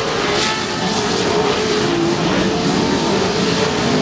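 Off-road short-course race trucks' engines running hard on a dirt track. Their pitch wavers up and down as they accelerate and lift, over a steady wash of noise.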